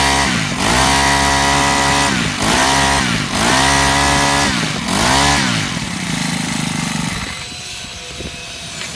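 Robin BH2510 brushcutter's small four-stroke OHV engine revved three times by its throttle, twice held high for about two seconds and once in a short blip, then dropping back to a low idle and going quieter near the end.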